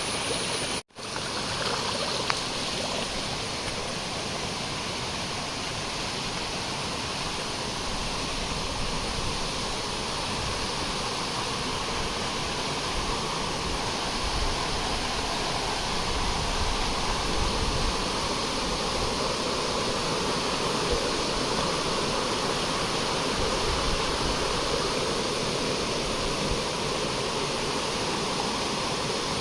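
Steady rush of the Thommankuthu waterfall and its stream, with a momentary break about a second in.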